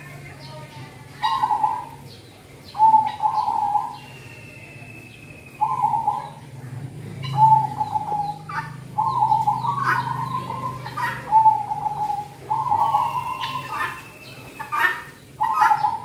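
Zebra dove (perkutut) cooing: a string of short cooing phrases repeated every second or two, with short chirps mixed in.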